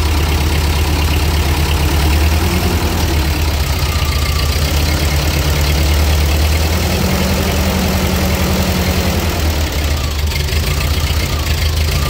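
1948 Ford 8N tractor's four-cylinder flathead engine running, its speed raised twice with the foot throttle and let back down to idle.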